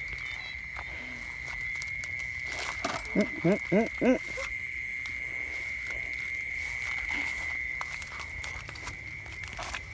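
A steady, high insect trill runs throughout, and about three seconds in a frog calls four times in quick succession. Grass rustles and there are light handling clicks.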